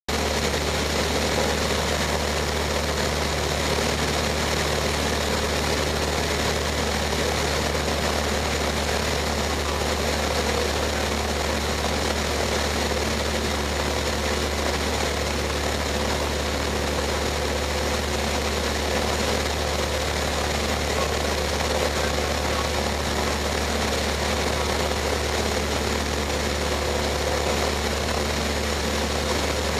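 Cessna 152's four-cylinder Lycoming O-235 engine and propeller running steadily in flight, a constant low drone with no change in power.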